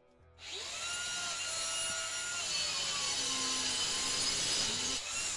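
Angle grinder cutting through a brick: it starts about half a second in, runs steadily for about five seconds with its whine shifting in pitch as the disc bites, and spins down at the end.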